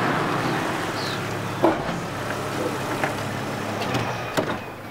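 Volvo V70 estate car rolling slowly up and pulling to a stop, its engine running steadily at low speed. A few short sharp knocks come along the way, the loudest under two seconds in.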